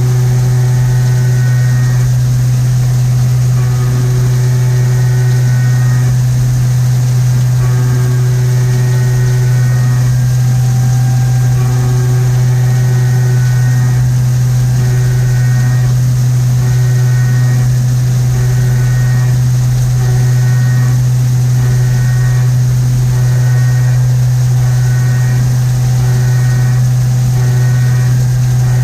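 CNC milling machine running a machining program: a loud, steady low hum throughout, with higher tones that start and stop every second or two as the motors change speed.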